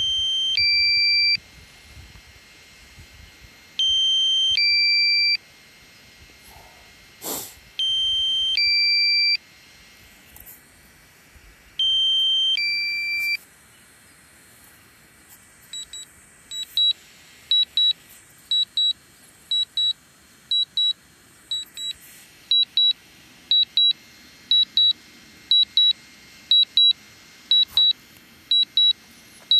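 Electronic warning beeps. A two-note beep, lower then higher, repeats about every four seconds. About halfway through this gives way to quick, short double beeps about once a second. There is a single faint click about seven seconds in.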